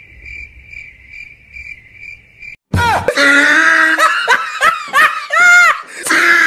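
A steady, pulsing high cricket-chirp sound effect, then about three seconds in a sudden, much louder burst of exaggerated comic laughter that runs to the end.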